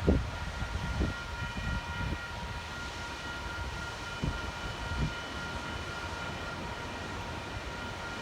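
Passenger train running close by, with a steady high-pitched whine of several tones over a low rumble and a few low thumps in the first five seconds.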